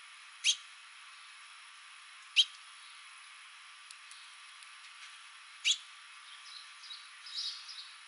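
House finches calling at a seed feeder: three loud, sharp chirps two to three seconds apart, each a quick sweep in pitch, then softer twittering near the end.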